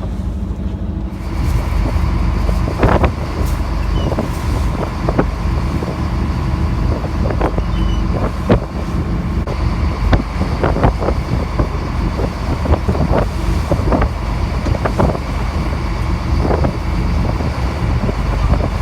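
Fishing boat's engine running steadily, with wind on the microphone and many short, sharp sounds scattered through it.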